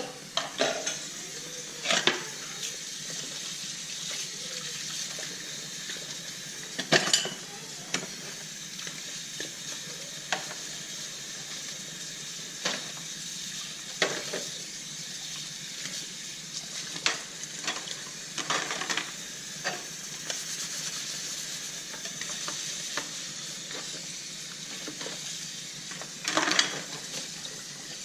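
Dishes and cutlery clinking and knocking in a sink as they are washed by hand, in scattered sharp clinks a second or several apart, over a steady hiss.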